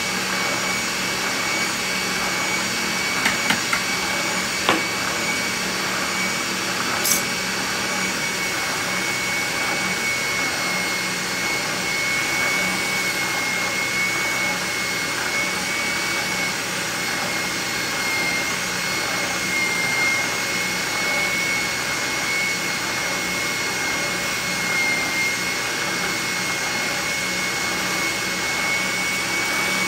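Spindle sander running with a shop vacuum drawing dust through its base: a steady whining hum as a steel knife blank is pressed against the sanding drum. A few light clicks of the blade against the metal table come between about three and seven seconds in.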